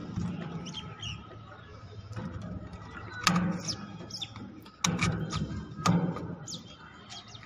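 A few sharp knocks, about three, from hands working on a satellite dish and its LNB mount, with small birds chirping in the background.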